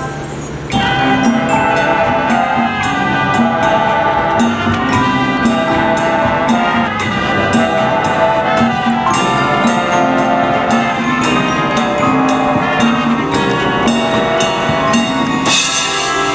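Marching band playing its show: brass and wind chords held over a steady drum beat, with mallet percussion. The band swells louder about a second in, and there is a crash near the end.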